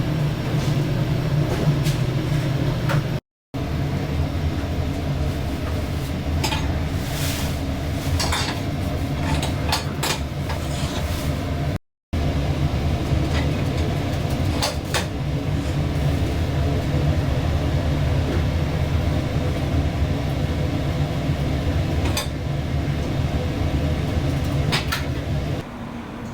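Restaurant kitchen ambience: a steady low mechanical hum with occasional clinks and clatter of utensils and dishes. The sound cuts out briefly twice.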